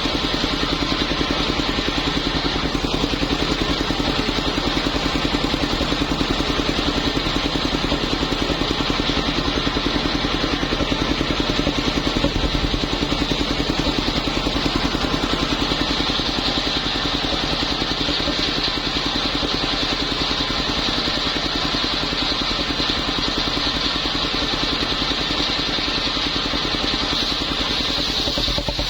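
Small engine running at a steady speed, driving a homemade circular saw, with a fast, even pulse and a constant high whine over it.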